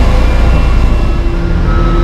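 Heavy diesel construction machinery running: a loud, steady low engine drone, its note changing about one and a half seconds in.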